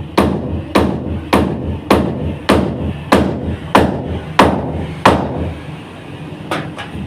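Repeated hammer blows at a steady pace of about one every 0.6 seconds, nine strikes in a row, then a pause and two lighter taps near the end.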